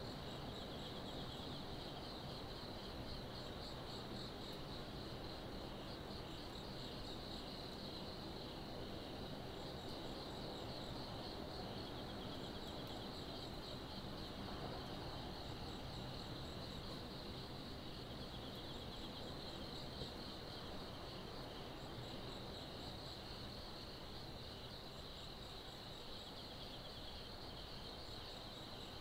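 Night insects calling: a steady, shrill trill, with a second insect's short bursts of very high chirps repeating about every three seconds, over a faint low hum.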